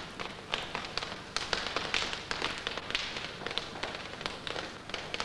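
A rapid, irregular run of sharp clicks and taps, several a second, over a steady hiss.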